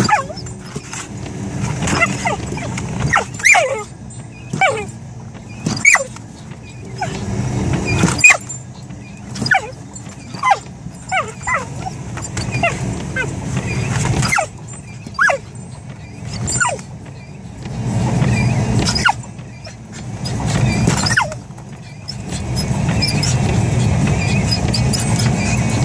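Australian cattle dog (heeler) yipping, barking and growling at moving windshield wipers: dozens of short calls that fall in pitch, mixed with sharp knocks, over the car's low steady hum. Near the end the calls give way to the hum, which grows louder.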